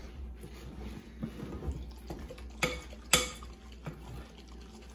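Spoon stirring and scraping buttercream in a glass mixing bowl, with two sharp clinks of the spoon against the glass a little past halfway.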